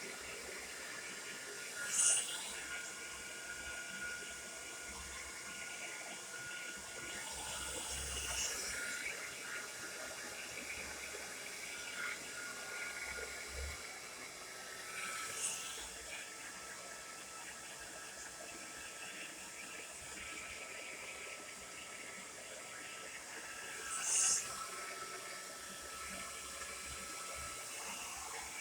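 Tresemme Salon Smooth Professional hair dryer running, a steady rush of air with a faint thin whine. Four brief sharper hisses stand out over it.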